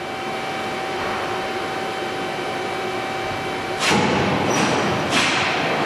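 Fryer MC-60 CNC vertical machining center running with a steady hum and a thin whine. About four seconds in, a louder rushing noise comes in as three surges and the whine stops.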